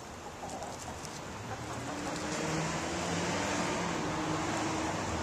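A motor vehicle's engine, a low steady hum that swells about two seconds in and then holds.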